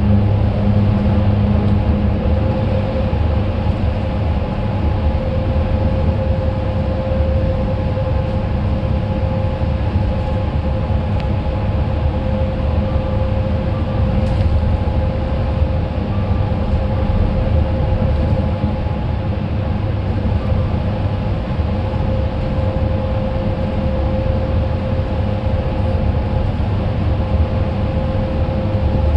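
Cabin noise inside a Hyundai Universe express coach cruising through a long road tunnel: a steady low rumble of engine and tyres, with a faint steady whine over it.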